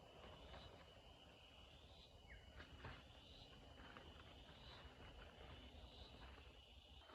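Faint rainforest insect chorus: a steady high-pitched whine, with a short rising call repeating about every second and a half and a few faint clicks.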